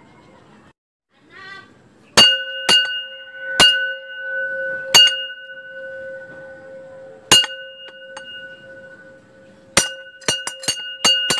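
A small object with a clear ring is tapped repeatedly as a sound cue for conditioning an animal. Single strikes come a second or more apart, each ringing on with the same steady tone, and near the end they turn into quick tapping.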